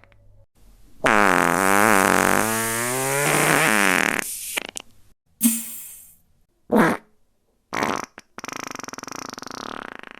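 A series of fart sound effects: a long pitched one wavering up and down for about three and a half seconds, then three short ones, and a rapid buzzing flutter near the end.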